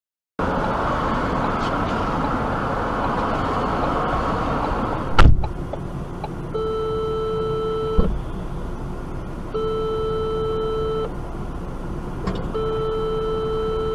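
Steady car road noise, cut by a loud crash of a collision about five seconds in, then a thump. After that an electronic warning beep sounds three times, each lasting about a second and a half.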